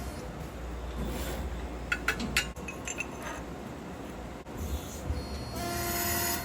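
A CNC hydraulic press brake running, with a steady low hum. A few sharp metallic clinks come about two seconds in, and a brief motor whine near the end as an axis moves.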